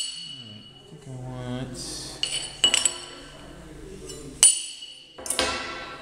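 Hammer blows on a steel tool used like a caulking tool, driving down a bent sheet-metal drum switch cover on a heavy steel table. Sharp metallic clinks ring briefly: a quick run of three or four about two and a half seconds in, a single one around four and a half seconds, and another near the end.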